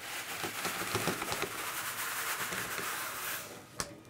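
Dense crackling of many thin 3D-printed PLA hair strands snapping and tearing loose as the plastic sacrificial wall is pulled up off a large hairy lion print. It stops about three and a half seconds in, followed by one sharp click.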